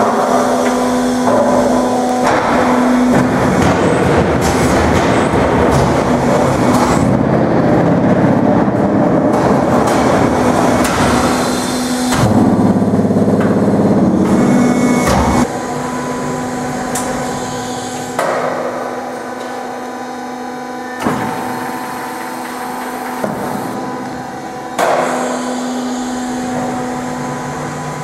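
Concrete block vibropress running: a few seconds in, a loud dense rattling vibration starts, the mould-compaction stage of the block-making cycle, and cuts off abruptly about fifteen seconds in. The machine then runs on more quietly with a steady hum and a couple of metallic clanks.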